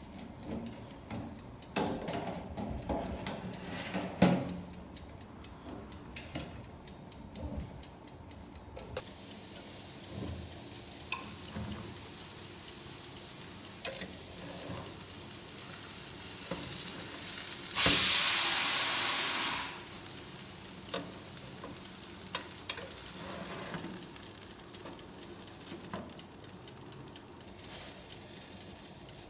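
Chicken sizzling as it fries, with knocks and clinks of utensils during the first several seconds. A steady sizzle sets in about nine seconds in and swells to a loud burst of sizzling for about two seconds near the middle, then settles back down.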